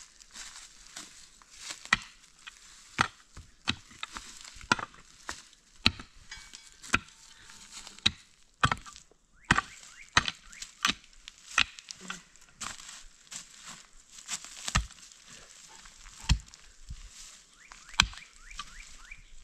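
Mattock blade striking dry, stony soil again and again, roughly once a second and a little irregularly, as a hole is dug; loose earth and dry leaves rustle between the strikes.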